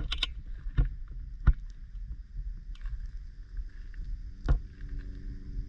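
Low wind rumble on the microphone of a hand-carried GoPro, broken by three sharp knocks, the loudest about a second and a half in.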